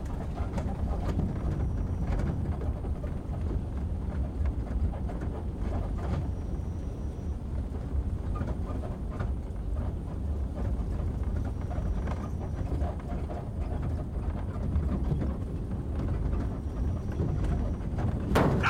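A pickup truck driving on a rough road, heard from its open bed: a steady low rumble of engine and tyres, with irregular knocks and rattles from the bed. A sharper knock comes right at the end.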